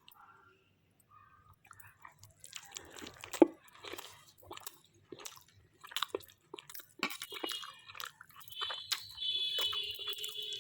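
Close-up chewing and mouth noises of a person eating a chicken shawarma wrap, with scattered small smacks and clicks. From about three-quarters of the way in, a steady high-pitched electronic-sounding tone plays in the background.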